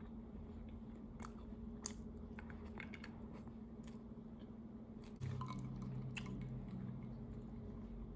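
Close-up chewing of humba-style braised ham and rice: soft wet mouth sounds with scattered small clicks and smacks. A low steady hum sets in about five seconds in.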